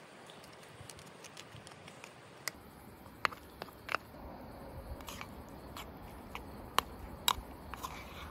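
Wooden spoon and chopsticks scraping and tapping against a soy-marinated crab shell and a wooden bowl as the crab innards are scraped out and mixed with rice: scattered light clicks and scrapes, with a few sharper taps.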